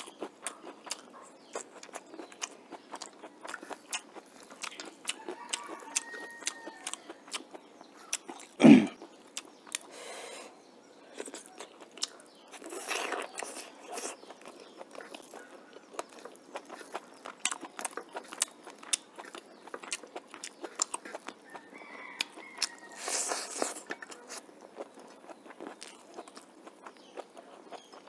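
Close-up chewing and crunching of a hand-eaten meal of chicken, bamboo shoot and rice, with many small wet mouth clicks throughout. A single loud thump about nine seconds in is the loudest sound, and there are two short breathy rushes around thirteen and twenty-three seconds in.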